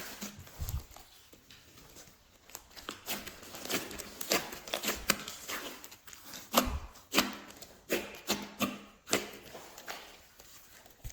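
Glossy slime being squished and stretched by hand, giving irregular sticky clicks and pops, with a couple of duller thumps, about a second in and again past the middle.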